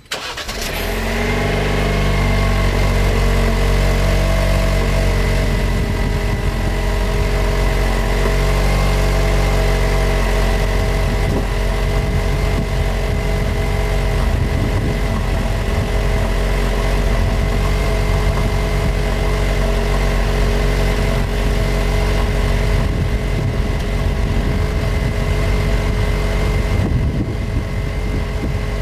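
2020 Jeep Wrangler JL with a 2.0-litre turbo four and an aFE axle-back exhaust, idling steadily through the exhaust, with a constant, unchanging engine note.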